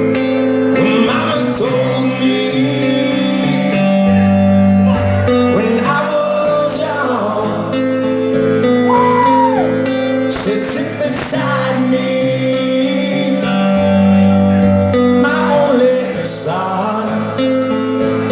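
Live acoustic rock performance: acoustic guitar strumming sustained chords under a male voice singing the melody.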